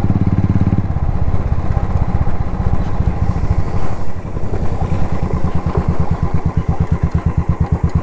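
Royal Enfield Thunderbird 350X single-cylinder engine running under way, with its even pulsing beat. The engine note drops about a second in, then runs on at lower revs with slower, distinct beats that grow louder toward the end.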